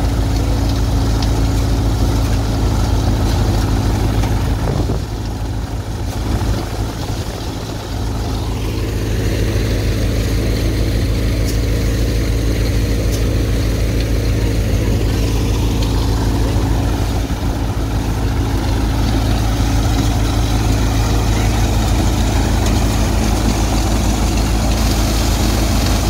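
Sahu soybean threshing machine, driven by the tractor beside it, running steadily as soybean plants are fed in: a constant loud machine and engine drone with a steady low hum. It dips a little in loudness for a few seconds about five seconds in.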